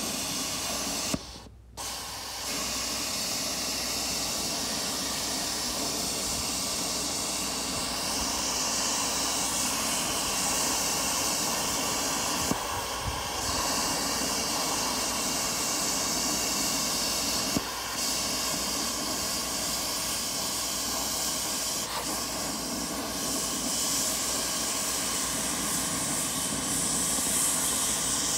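Hypertherm Powermax85 plasma cutter with a replacement hand torch cutting through 1-inch-thick steel: the plasma arc and air blast make a steady hiss, briefly dropping out about a second in.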